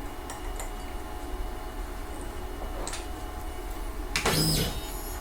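Steady hum from the Onefinity CNC machine, with a few light clicks and a brief louder clatter about four seconds in.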